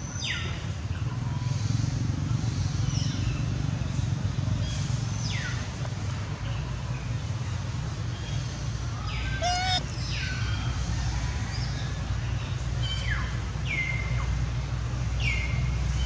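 Birds calling with short whistles that slide downward in pitch, repeated every second or two, with one louder, choppier call about halfway through, over a steady low rumble.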